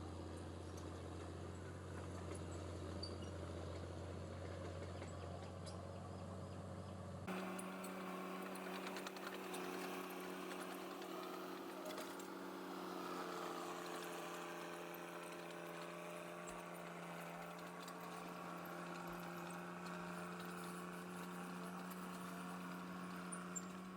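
Cat Drott track loader's diesel engine running steadily at a distance, a low even hum; about seven seconds in it changes abruptly to a steadier, higher-pitched drone.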